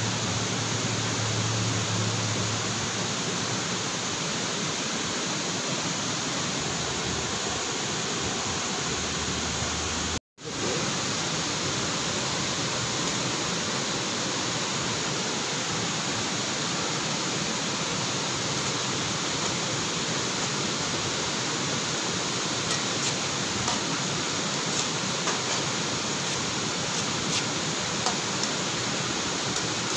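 Steady rushing of a waterfall. It cuts out for a moment about ten seconds in, and a few faint small clicks come near the end.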